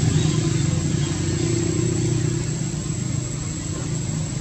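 A steady low engine hum, such as a motor vehicle running nearby, that eases off slightly towards the end.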